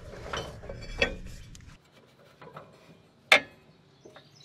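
Electric PTO clutch-brake on a zero-turn mower clicking as it is switched on and off with the key on, testing the newly installed unit: a few sharp clicks, the loudest about three seconds in.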